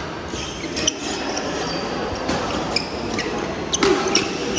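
Badminton doubles rally on a wooden court: several sharp racket-on-shuttlecock hits at irregular intervals, with brief shoe squeaks and footfalls, echoing in a large hall.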